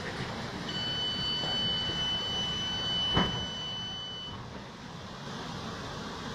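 A steady high electronic beep, held for about three and a half seconds, over the low running hum of a train carriage. A sharp click comes shortly before the beep ends.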